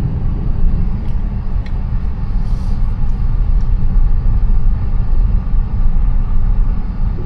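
Tesla electric car driving on a snowy road: a steady low tyre-and-road rumble with no engine note, and a few faint clicks.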